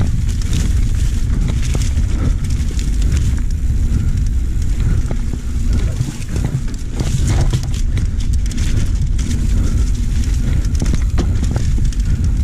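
Wind buffeting the microphone of a mountain bike rider coming down a dirt singletrack, with rattles and knocks from the bike as it runs over bumps.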